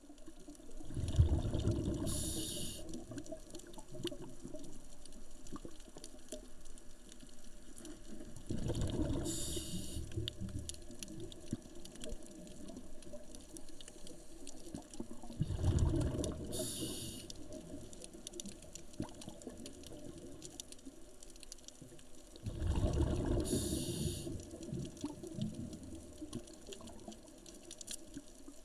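Scuba diver breathing through a regulator, heard underwater: four breaths about seven seconds apart, each a rumble of exhaled bubbles with a short high hiss. Faint crackling runs between the breaths.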